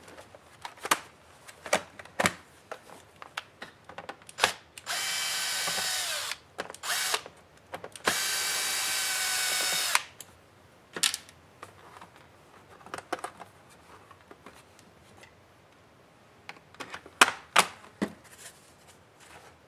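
Cordless electric screwdriver running twice, each run lasting a second and a half to two seconds with a steady whine, as it backs out the screws of a laptop's bottom cover. Before the runs come sharp knocks and clicks of the laptop being handled and turned over. After them come more clicks and taps as the plastic access cover is pried loose and lifted off, the sharpest near the end.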